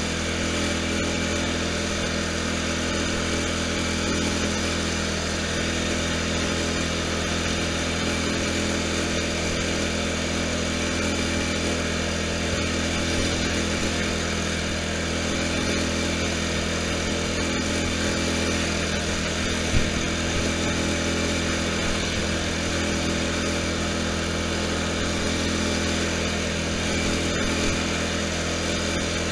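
Lawn tractor engine running steadily under way, an even drone, with one brief knock about two-thirds of the way through.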